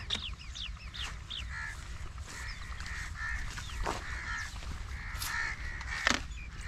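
A flock of babblers chattering: harsh, nasal calls repeated in short runs, with thin falling chirps in the first second or so. A few sharp knocks cut through, the loudest near the end.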